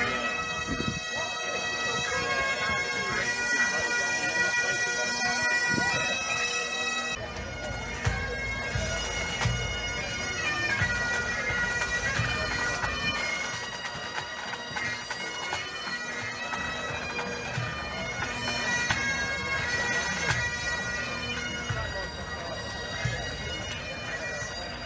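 Bagpipes playing a tune of held notes over a steady drone.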